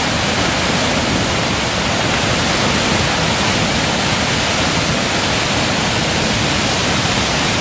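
Creek in flood rushing over a small dam, a loud, steady rush of water: so much water is coming down that the dam has almost disappeared under it.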